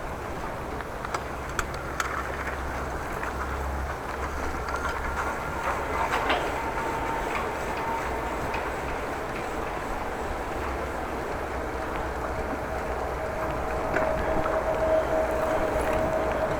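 Steady road and tyre noise from a bicycle ridden on a wet street in light rain. A steady whine grows in over the last few seconds.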